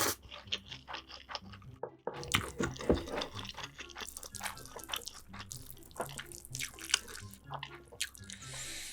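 Close-miked eating sounds: wet chewing with many small mouth clicks and smacks.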